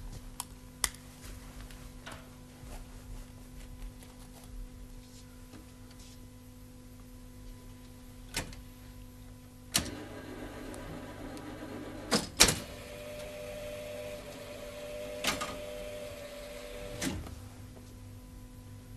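Jukebox mechanism at work: a few sharp clicks, then about ten seconds in a motor starts whirring with several loud clunks, running for about seven seconds before it stops, under a steady electrical hum.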